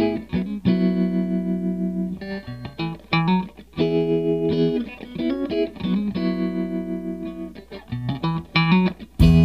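Background music: the instrumental intro of a song, led by a guitar playing a sequence of ringing chords. Near the end, more instruments come in louder, with a low bass.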